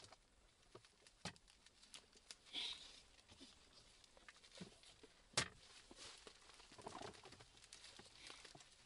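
Faint clicks, taps and rustles of a folding camp table being handled and set up, with one sharp click about five and a half seconds in, the loudest sound.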